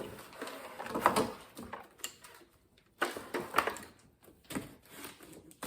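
Irregular handling sounds of a vacuum being unpacked: packaging rustling with light knocks and clicks of plastic parts, with a brief pause about halfway through.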